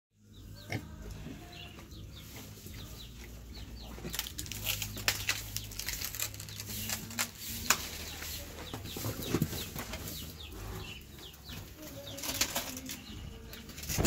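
Young pigs rooting and feeding at a wooden trough: many short clicks and crunches of snouts and chewing in the feed, with a few low grunts. Short high chirps recur throughout.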